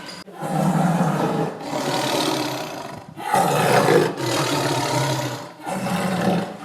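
Tiger roaring and growling: a run of about five rough calls, each about a second long, with short breaks between them.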